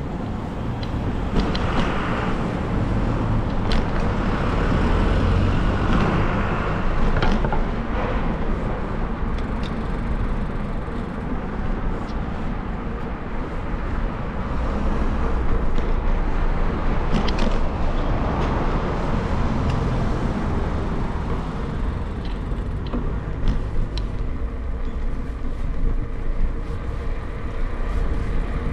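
Street and traffic noise heard while riding a bicycle through narrow city streets: a steady low rumble with occasional sharp clicks.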